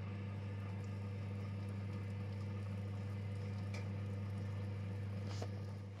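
Electric oven running with a steady low hum while bread bakes inside, with a couple of faint ticks; the hum fades out near the end.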